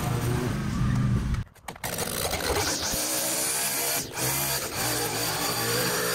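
A stand-on mower's engine running steadily under load while it cuts long grass. It cuts off briefly about a second and a half in, and a string trimmer takes over, its engine running fast and steady as it edges grass.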